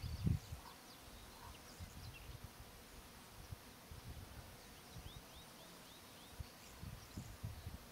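Quiet grassland ambience: scattered short high bird chirps, with a run of five quick arched high notes a little after the middle, over low rumbles that are loudest just at the start.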